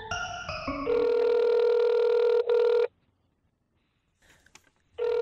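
A telephone ringing tone: a steady electronic beep held for about two seconds, a pause of about two seconds, then the same beep again near the end. It is preceded by a quick falling run of electronic notes in the first second.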